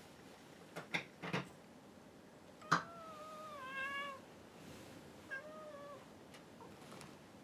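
Domestic cat meowing twice, a longer meow and then a shorter one, after a few light clicks.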